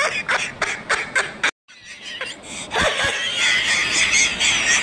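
A person laughing in quick pulses. After a short break, a high-pitched squealing sound wavers on.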